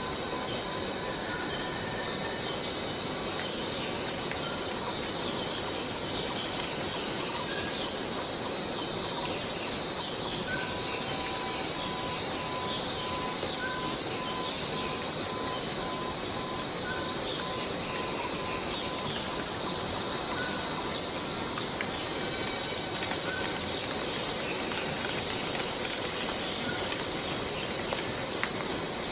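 Steady, continuous high-pitched insect chorus, with a faint short call about every three seconds.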